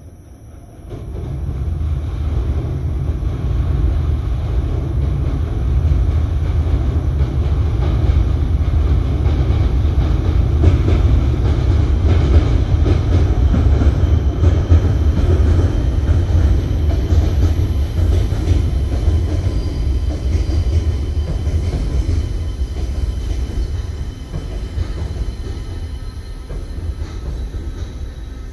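Keisei AE-series Skyliner electric train crossing a river railway bridge: a deep rumble of wheels on the bridge comes up about a second in, holds loud, and slowly fades toward the end.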